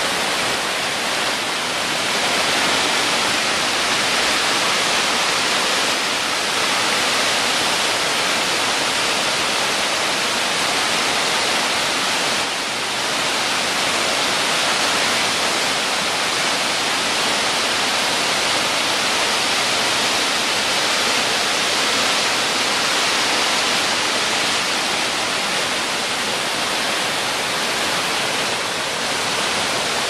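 Waterfall pouring into a rocky pool, with water rushing over the rocks: a steady, even rush.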